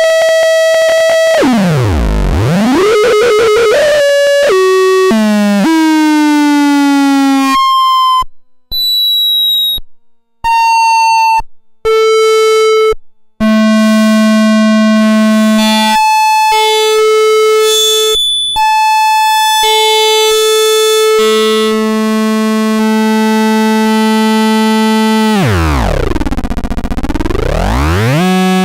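Circuit-bent noise sequencer putting out buzzy electronic tones that hold and step between pitches. A deep swoop down and back up comes near the start and again near the end, and the tones cut in and out choppily through the middle.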